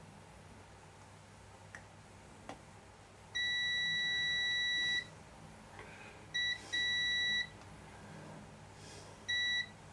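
High-pitched electronic beep, one steady tone, sounding four times at uneven lengths from a short blip to over a second and a half. It is preceded by two faint clicks.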